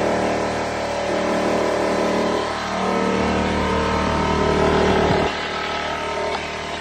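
Air compressor running steadily to feed a pneumatic flooring nailer, a pitched mechanical hum; its deepest part drops away about five seconds in.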